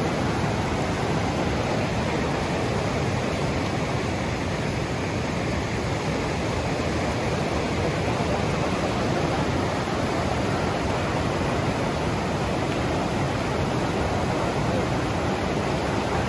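Whitewater rapids of a fast river rushing steadily over boulders, an even, unbroken rush of water.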